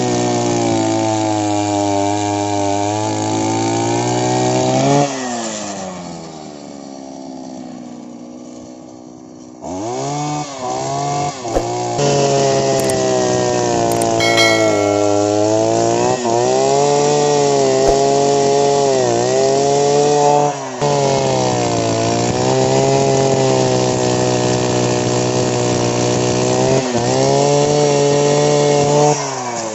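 Engine of a handheld earth auger running at high revs, dropping to a quiet idle about five seconds in and revving back up about ten seconds in, then held high with several brief dips in revs.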